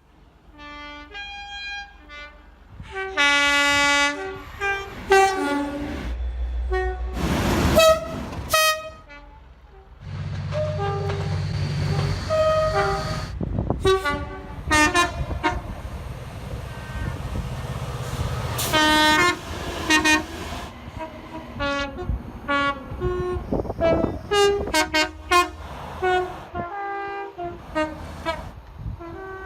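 Locomotive horns sounding a string of short toots and longer blasts, one horn after another. A passing train's low running rumble sits under the horns from about ten to eighteen seconds in.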